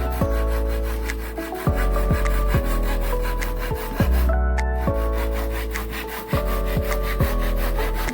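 A saw cutting through wood with even back-and-forth strokes, over background music.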